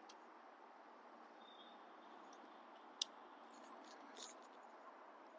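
Near silence inside a parked car: a faint steady hiss, with one sharp click about three seconds in and a few fainter clicks about a second later.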